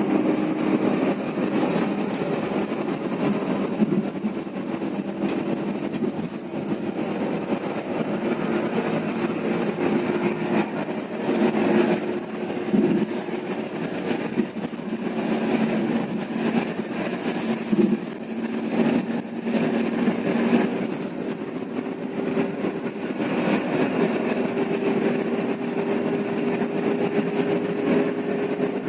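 Intercity bus on the move: steady engine hum with road noise, the engine's pitch rising slowly over the last several seconds.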